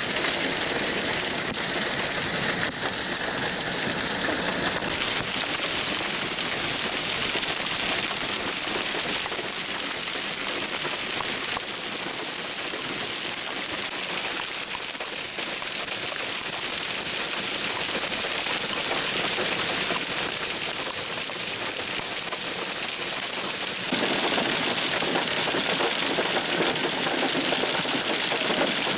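Heavy hail of about one-inch stones pelting down, a dense, steady clatter of countless stones striking the ground and pavement. It gets louder about 24 seconds in.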